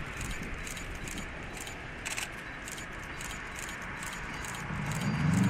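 JR Hokkaido KiHa 54 diesel railcar running toward the listener on a curve, a steady rumble with a run of sharp clicks over it. A low engine hum swells about five seconds in as it draws closer.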